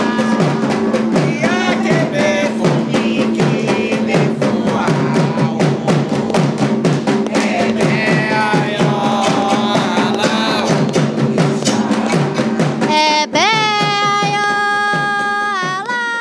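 Atabaque hand drums played in a fast rhythm under a sung Candomblé chant. About thirteen seconds in the drumming stops and a single long held note remains, fading near the end.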